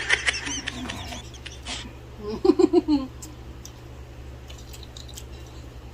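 A person's high, wavering laugh that trails off within the first second, then a shorter pulsing burst of laughter about two and a half seconds in, over a steady low hum.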